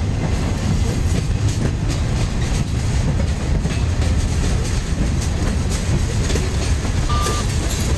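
Freight train's tank cars rolling past on the rails: a steady low rumble of steel wheels on track, with scattered clicks and clunks as the wheels pass over the rail.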